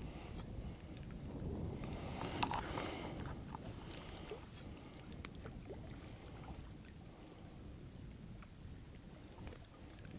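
Low wind rumble on the microphone and small waves lapping at shoreline rocks. A brief cluster of clicks and rustling comes about two and a half seconds in.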